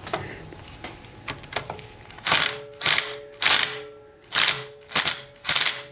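Hand ratchet being swung back and forth, its pawl clicking in about six even rasping strokes from about two seconds in, with a few faint clicks before. It is loosening the bolt that holds the dipstick tube.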